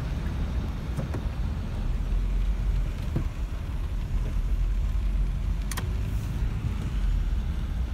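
Car driving through flooded road, heard from inside the cabin: a steady low rumble of engine and tyres, with the hiss of water spraying up from the wheels. A short click about six seconds in.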